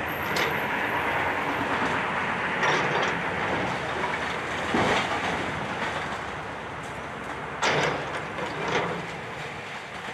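Excavator running as its steel bucket breaks apart a brick chimney, bricks and rubble clattering and crashing down, with several sharp knocks, the loudest about five seconds in and near eight seconds.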